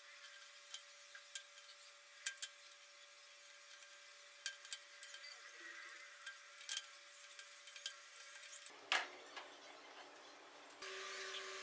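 Scattered light clicks and clinks from an expanded metal mesh sheet and plastic cable ties being handled and fastened over a PVC pipe frame, with a louder click about nine seconds in.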